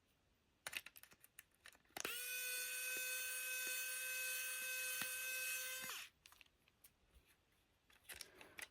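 Small electric motor of a handheld tool running at a steady pitch for about four seconds, starting about two seconds in and stopping suddenly, with a few light clicks of handling before it.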